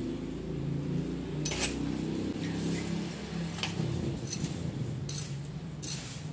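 A metal hand tool scraping and chopping into weeds and dry debris on the ground, several short sharp strokes a second or so apart, over a steady low hum.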